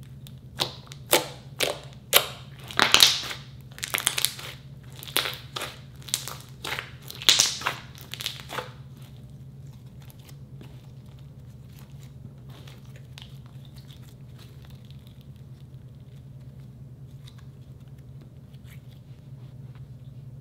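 Thick glossy slime being squeezed and folded by hand, with trapped air bursting out in a series of sharp crackling pops, about a dozen over the first nine seconds, then only faint occasional clicks. A steady low hum runs underneath.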